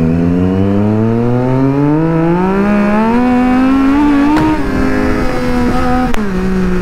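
Triumph Street Triple's inline three-cylinder engine accelerating hard, its revs climbing steadily for about four seconds. The pitch then drops in two steps, each with a brief click.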